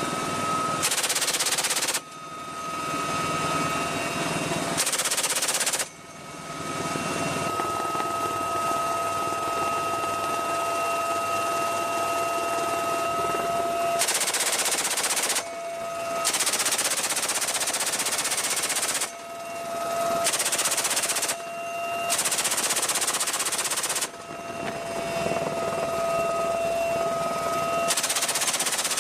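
Door gun on a UH-1Y Venom helicopter firing about seven bursts, each from under a second to about three seconds long, over the steady whine of the helicopter.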